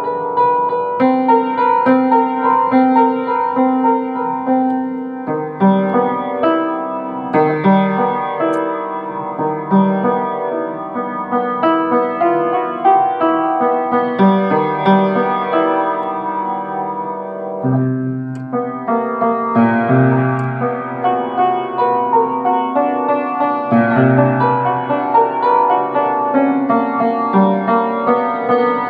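Solo piano played by hand: a continuous flow of melody notes over repeated chords, with deeper bass notes coming in a little past the middle.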